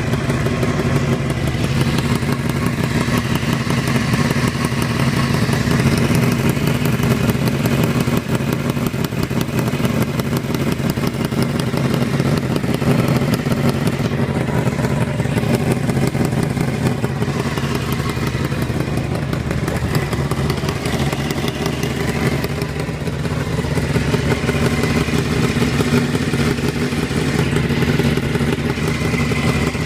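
Honda CBR600 inline-four engine running steadily with a fast, continuous ticking clatter over the engine note, a tick whose cause the owner cannot place.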